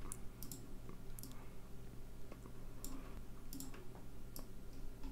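Computer mouse clicking: scattered sharp clicks, some in quick pairs, over a faint steady low electrical hum.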